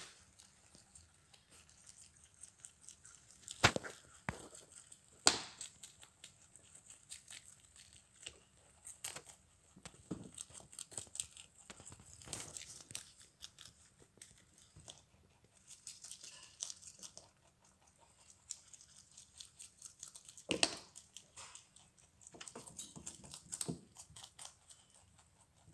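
Rabbits chewing and tearing Chinese broccoli leaves and stems: a scatter of faint crisp crunches and rips. A few louder sharp clicks stand out, about four seconds in, a second later, and about twenty seconds in.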